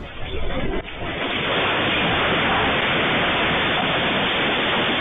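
A shop shaken by an earthquake, heard through a security camera's microphone: a few knocks and clatters of stock in the first second, then from about a second in a loud, steady rush of noise as dust and debris come down.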